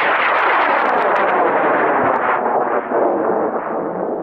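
High-power rocket motor (an experimental M1900) burning after launch: a loud, dense crackling exhaust noise that comes on suddenly and eases off toward the end.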